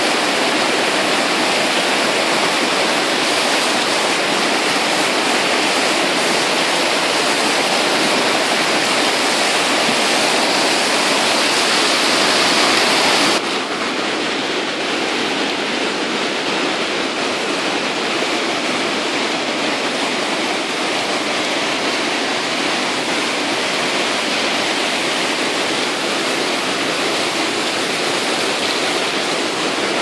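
Hebden Water in spate after rain: fast white water rushing, a loud, steady, even noise. About thirteen seconds in it drops slightly and loses some of its hiss.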